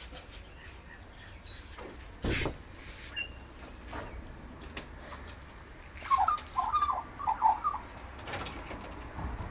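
A bird calling: a quick run of about seven or eight short calls about six seconds in, the loudest part. A brief sharp noise comes about two seconds in.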